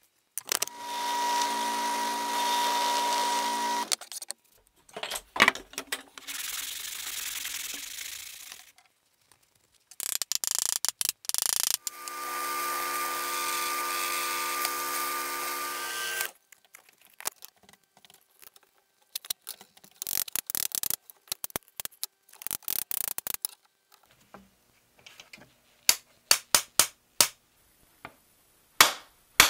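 Drill press motor running in two steady stretches of a few seconds each while drilling holes in a wooden saw handle. In between and afterwards come scattered sharp clicks and knocks of wood and small metal parts being handled on the drill table.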